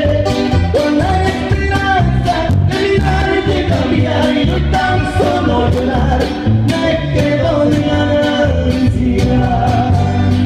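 Latin band music with a guitar-led melody over a steady bass and beat, in a passage between sung choruses.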